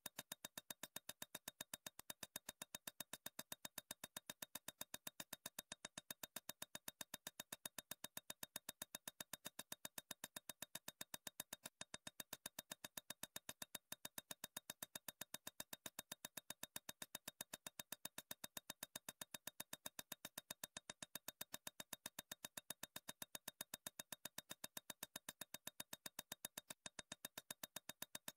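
Faint, rapid, perfectly even ticking of a digital tick sound effect, about four clicks a second, as the score numbers of an on-screen score randomizer cycle.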